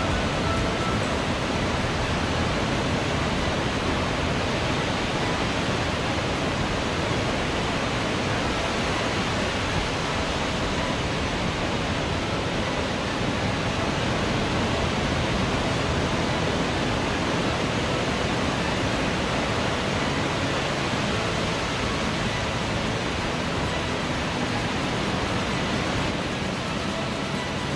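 Ocean surf breaking and washing up a sandy beach: a steady, dense rush of waves.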